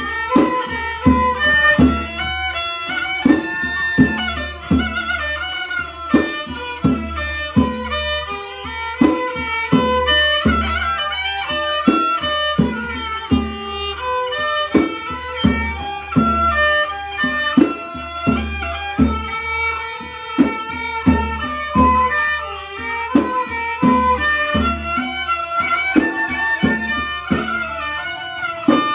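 Mahori kantrum folk ensemble music: a bowed fiddle melody over a steady drum beat of about two strokes a second.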